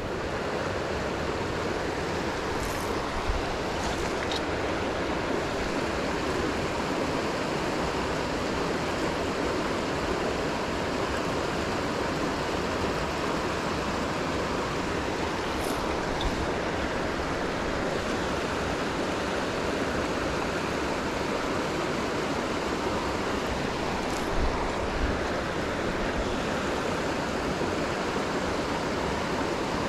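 Mountain trout stream rushing over rocky riffles and a small cascade: a steady, even rush of water, with a few faint clicks now and then.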